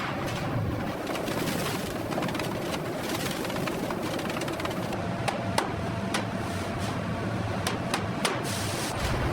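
Steady machinery rumble with a faint hum, joined from about five seconds in by a handful of sharp clicks.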